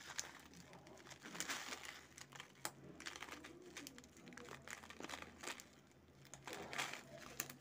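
Faint crinkling and scattered light crackles as crisp sev is sprinkled onto a plate of dahi bhalle.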